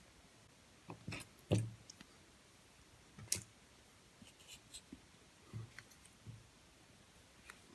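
A few scattered light clicks and taps, the loudest about one and a half and three and a half seconds in, as the small pins and springs of a disassembled padlock are handled and laid out.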